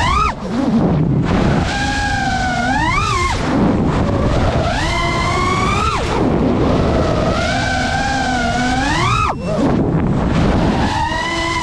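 FPV quadcopter's brushless motors whining, their pitch climbing with each throttle punch and dropping sharply as the throttle is chopped, several times over. A steady rumble of wind and prop wash lies underneath.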